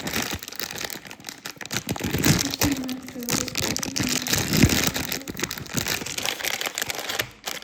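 Plastic blind-box packaging crinkling and rustling as it is torn open and handled, a dense crackle of many quick small noises.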